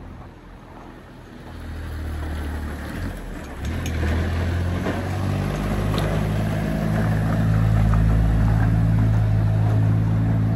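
A motor vehicle's engine running, growing louder over the first several seconds as it comes closer, its pitch shifting a few times.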